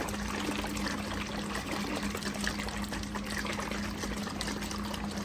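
Liquid turkey-injection marinade sloshing in its bottle as it is shaken hard, with irregular small splashes and clicks over a steady low hum.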